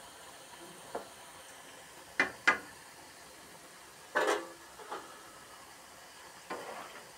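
Potato fries deep-frying in hot oil in a black wok, a steady sizzle, with a metal slotted spatula clinking and scraping against the pan several times, loudest twice around two seconds in and once around four seconds in.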